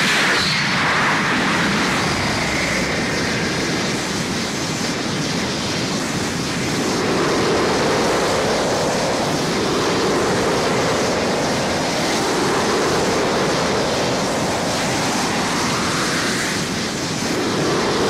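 Pachinko machine reach-action sound effect: a sudden blast at the start runs into a continuous rushing whoosh, with slow sweeping tones rising and falling in pitch every few seconds.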